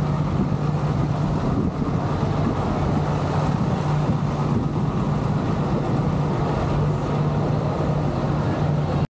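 Steady low engine hum, unchanging throughout, that stops abruptly at the very end.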